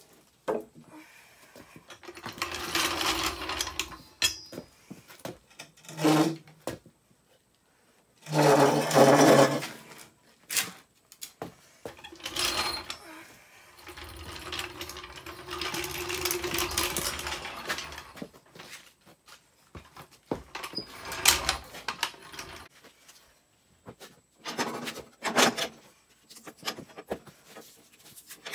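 Handling noise from a phone being moved about: fabric brushing against the microphone, with irregular rubbing, scraping and a few sharp knocks, loudest about eight seconds in.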